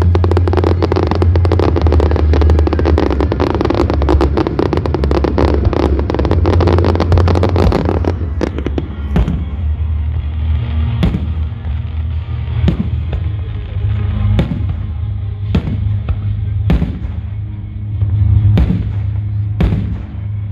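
Fireworks: a dense, rapid crackling barrage for about the first eight seconds, then single bangs about once a second, over music with a steady bass.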